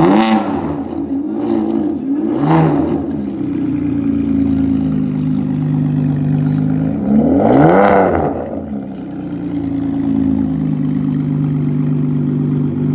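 Ferrari 599 GTB's V12 breathing through a catless Capristo exhaust. It is blipped sharply near the start and again about two and a half seconds in, and revved higher, rising and falling, about eight seconds in; between the revs it runs steadily.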